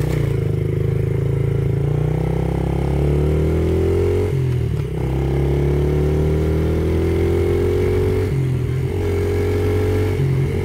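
Yamaha TTR50E pit bike's small four-stroke single revving up under way. It rises in pitch through each gear, then dips and restarts lower at each of three gear changes on its three-speed gearbox.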